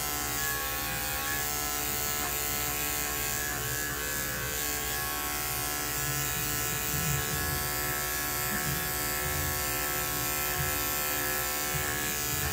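Electric dog-grooming clipper running with a steady buzzing hum while it is worked around a shih tzu's head.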